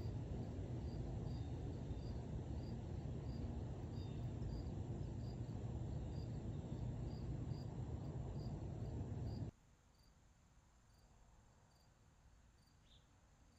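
A cricket chirping steadily, about two short high chirps a second, over a steady low rumble. The rumble drops away suddenly about nine and a half seconds in, leaving the chirps faint.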